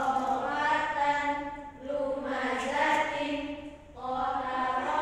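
A group of voices reciting Qur'anic Arabic words together in unison, chanted in a Qur'an reading drill. The phrases are drawn out, each about two seconds long, with short breaks between.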